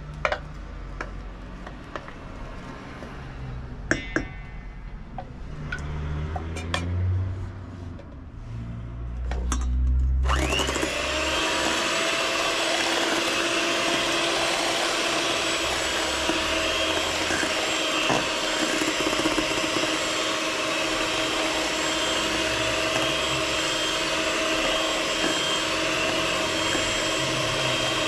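Electric blender puréeing spinach leaves with milk. Handling clicks and knocks come first; about ten seconds in the motor starts and runs steadily with a whine, and its pitch drops as it winds down near the end.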